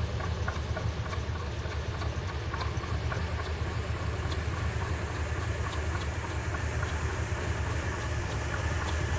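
Ford 302 small-block V8 idling steadily, a low, even throb that holds without revving.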